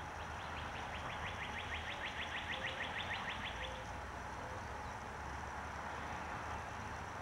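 A small songbird's rapid dry trill, about seven or eight quick notes a second, lasting about three and a half seconds and stopping just before the middle, over a steady low background rumble.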